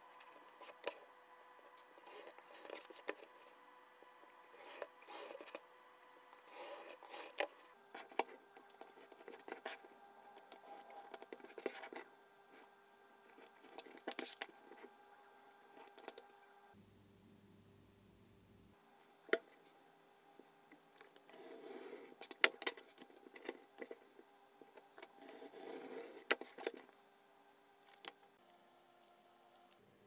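Craft knife drawn along a steel ruler in short strokes, cutting strips of kraft foam board on a cutting mat, with scattered clicks and taps as the ruler and cut pieces are handled and set down.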